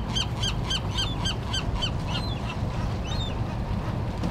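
A gull calling in a fast run of honking notes, about five a second, that breaks off about two seconds in, followed by a couple of single calls. A steady low rumble runs underneath.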